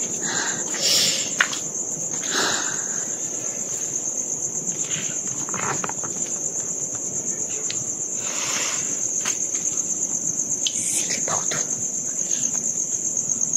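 Crickets trilling in a steady, high-pitched night chorus, with a few short soft rustles scattered through.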